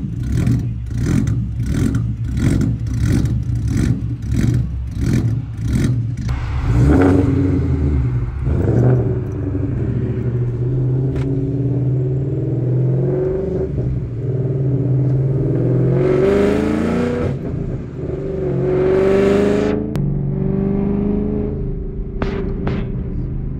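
2014 Mustang GT's 5.0 V8 on an E85 tune with a 'ghost cam' setting, idling with a choppy lope that pulses about twice a second. About seven seconds in it pulls away, the engine note climbing in pitch and dropping several times as it accelerates through the gears, heard from inside the cabin.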